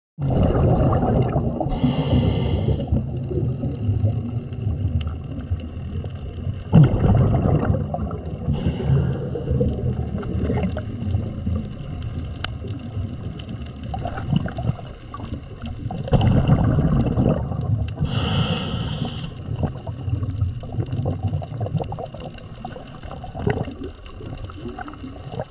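Scuba diver breathing through a regulator underwater, heard through the camera housing. Long low bubbling exhalations alternate with short hissing inhalations, about three breaths.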